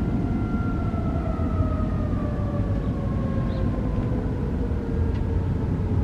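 Federal Signal EOWS 612 electronic siren winding down at the end of its Alert cycle: its tone falls slowly and steadily in pitch. A steady low rumble runs beneath it.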